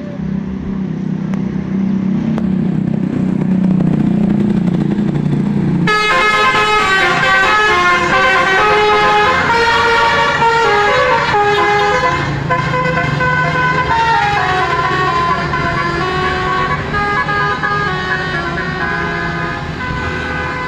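A bus engine rumbling, then about six seconds in a multi-tone telolet bus horn starts up and plays a long tune of short stepping notes over it.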